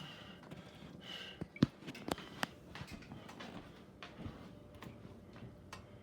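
Scattered small knocks and clicks of kitchen utensils and dishes being handled, the sharpest about a second and a half in.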